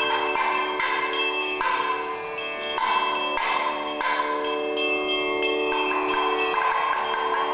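Brass hand bells rung continuously during the aarti lamp offering: repeated strikes keep a cluster of overlapping, lingering ringing tones going throughout.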